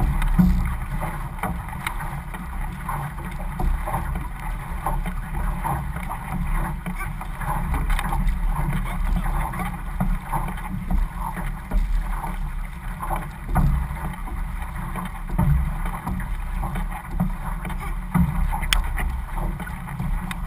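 Outrigger canoe paddles digging into the water in rhythm, about one stroke a second, each pull a splash, over water rushing along the hull and the low rumble of wind on the microphone.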